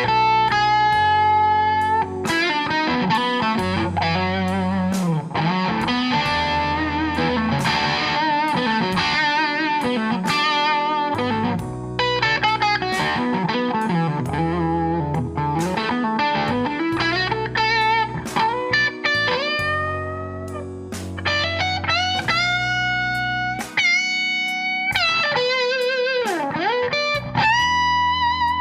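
Electric guitar through a Suhr SSV+ bridge pickup, playing blues lead lines full of string bends and vibrato, with lower notes sustained underneath.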